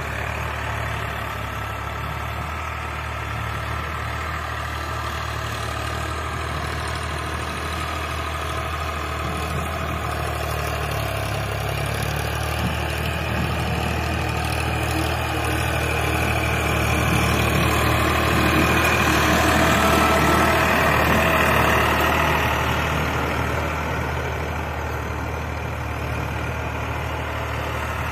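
Farmtrac 45 tractor's three-cylinder diesel engine running steadily under load while pulling a nine-tine cultivator through the soil. It grows louder past the middle as the tractor comes close, then fades as it moves away.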